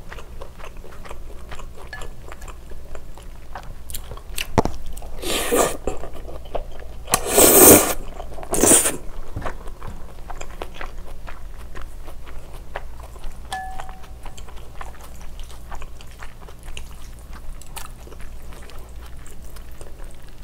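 Close-miked mouth sounds of someone eating spicy cold noodles: steady wet chewing with many small clicks, and a few louder noisy bursts of slurping noodles, the loudest about seven and a half seconds in.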